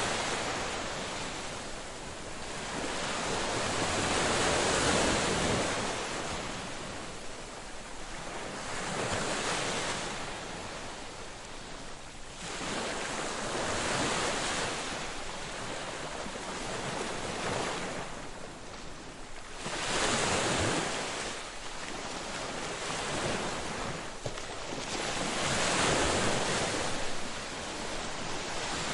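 Ocean waves breaking and washing up on a beach, the surf swelling and falling back every few seconds.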